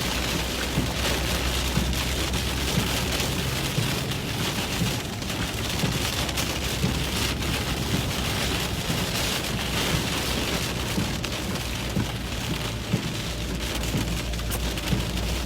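Heavy rain pelting a truck from inside the cabin, a dense steady hiss with fine ticks of drops, over the low drone of engine and road noise while driving.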